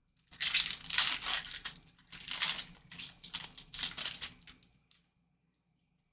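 A foil trading-card pack wrapper is torn open and crinkled in several bursts that stop about five seconds in.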